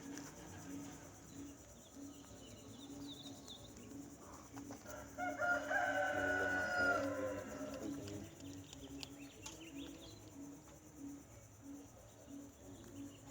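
A rooster crows once, a single long call that begins about five seconds in and trails off after about two seconds.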